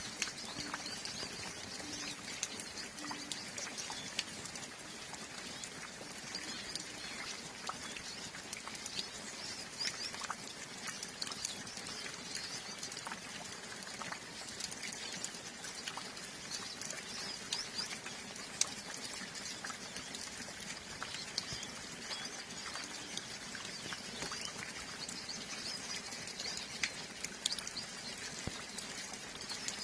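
Steady light rain with water dripping and pattering in many small ticks, while a flock of hooded siskins (pintassilgos) twitters with short high chirps.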